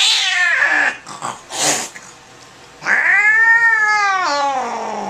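An angry, fractious domestic tabby cat yowling while restrained: a long drawn-out yowl that breaks off about a second in, a short hiss, then a second long yowl that rises and slides down to a low growl-like end.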